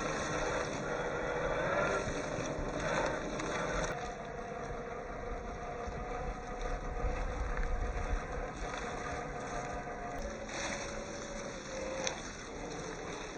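1/10-scale MST CFX RC crawler's electric motor and gearbox whining as it drives over rough ground, the pitch shifting with the throttle.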